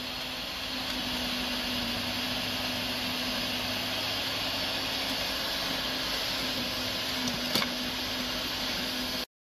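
Corded electric tiller running steadily as it churns through soil: a constant motor hum with a rushing whine. A single sharp knock comes near the end, and the sound stops suddenly just before the end.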